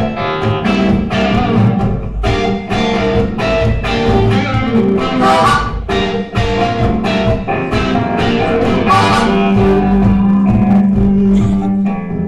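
Live band playing an instrumental passage with an electric guitar to the fore, in a bluesy style, with no singing.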